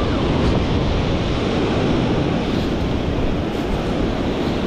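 Small waves washing up over the sand at the water's edge, with wind buffeting the microphone in a steady low rumble.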